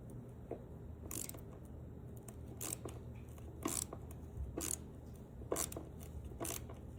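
Mini hand ratchet driving a steel threaded insert, a short sharp click about once a second with each stroke.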